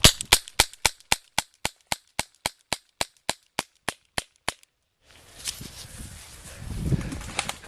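Airsoft gun firing a rapid string of sharp cracks, about four a second for roughly four and a half seconds. After a brief break there is outdoor rustling with a few more scattered shots near the end.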